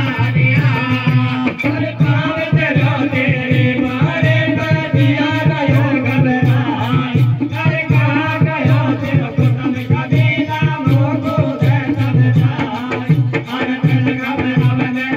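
Live Gurjar hari kirtan, a Rajasthani devotional folk song: a group of men singing over a drum and rattling percussion that keep a steady beat.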